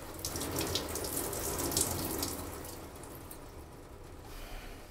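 Water poured from a plastic cup over a person's head into a bathtub, splashing and trickling, fading away over the last couple of seconds.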